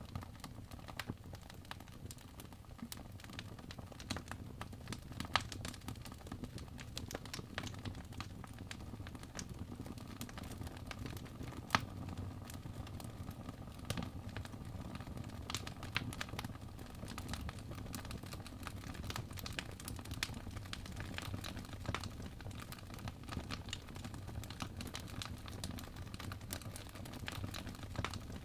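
Wood fire crackling in a fireplace: a steady low rumble of flames with irregular small pops and snaps, two of them louder, about five and twelve seconds in.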